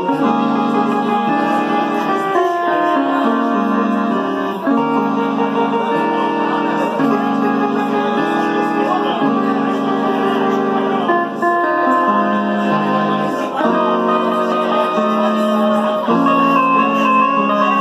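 Keyboard synthesizer played live: sustained chords that change about once a second, with a higher melody line on top and no drums.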